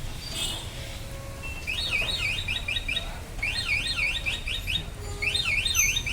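Electronic alarm sounding in a repeating cycle, starting about a second and a half in and coming round three times: each cycle is a quick up-and-down warble followed by a few steady high beeps, over a low background rumble.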